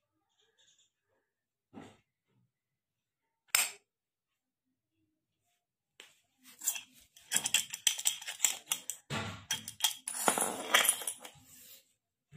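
Small metal padlocks and keys clinking and rattling against each other and the table as they are picked up and handled, in a busy run of clicks from about six seconds in. A single sharp metallic click comes a little before.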